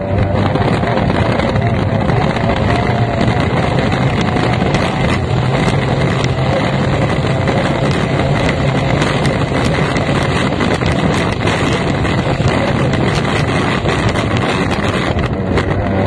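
F1 racing powerboat's outboard engine running hard at speed, a steady loud drone with wind buffeting the microphone and short knocks throughout.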